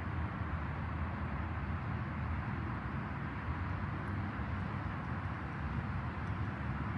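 Pressure washer running and spraying water: a steady hiss over a low motor hum, unbroken throughout.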